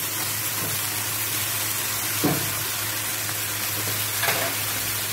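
Marinated chicken pieces sizzling as they hit the hot pot of sautéed garlic, tomato and lemongrass, a steady frying hiss. Two short knocks come about two and four seconds in.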